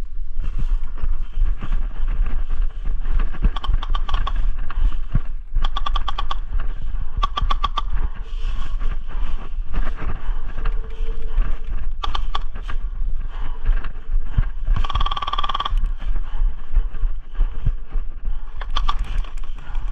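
Airsoft electric guns firing short rapid bursts on automatic, a rattle of quick clicks several times over, the longest about a second long near three-quarters of the way in. A heavy rumble of wind buffeting the microphone runs underneath.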